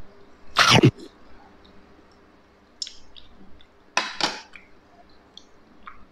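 Eating sounds of a person tasting a spoonful of star apple mixed with milk: a loud slurp about half a second in, two more slurping smacks around four seconds in, and small wet mouth clicks between.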